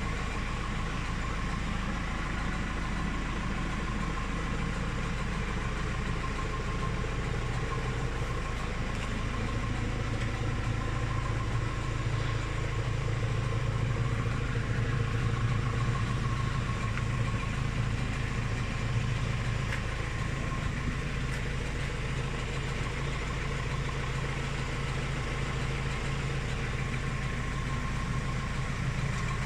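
Claas Rollant 255 RotoCut round baler running in a test run, driven from a tractor's power take-off, with the tractor engine running steadily. The sound grows a little louder about halfway through.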